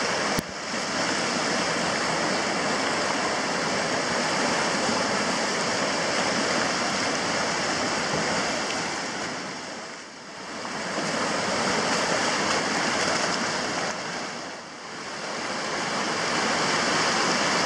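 River rapids rushing steadily as whitewater pours over rocks. There is a single click just after the start, and the rush dips briefly twice in the second half.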